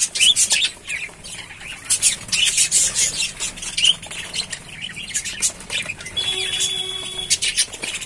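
A flock of budgerigars chattering, a busy stream of short high chirps and squawks.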